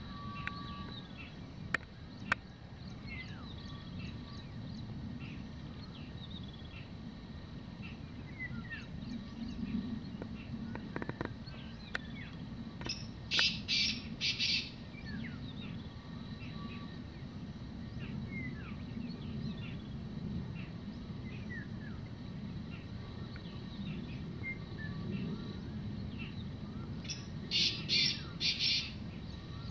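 Black francolin calling twice, each call a phrase of three or four rapid notes, once about halfway through and again near the end. Small birds chirp faintly throughout over a low steady rumble.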